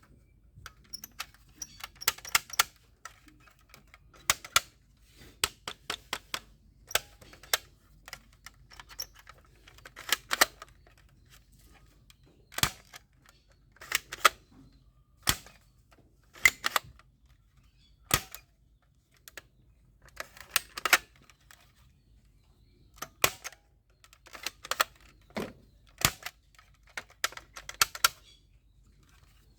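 Plastic toy guns being handled and worked: irregular sharp clicks and clacks, some single and some in quick little runs.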